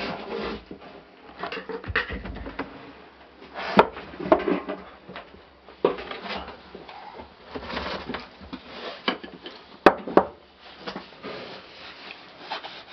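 Irregular rustling, shuffling and light knocks in a small wooden whelping box where a nursing dog and her newborn puppies are moving. Two sharp clicks come about four and ten seconds in.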